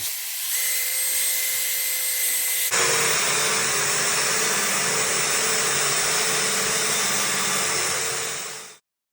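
Power tool running steadily while it works a small steel bar, a hiss with a steady whine. The sound changes abruptly about a third of the way in and cuts off suddenly near the end.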